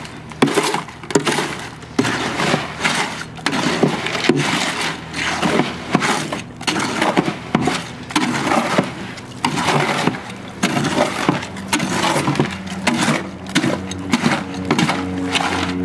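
Hoe blade scraping and chopping through wet concrete mix in a metal wheelbarrow, in repeated irregular strokes about one or two a second. A steady low hum comes in near the end.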